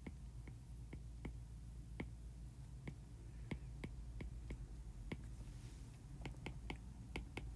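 Faint irregular clicks of a pen tapping as it writes, a few each second and closer together near the end, over a low steady hum.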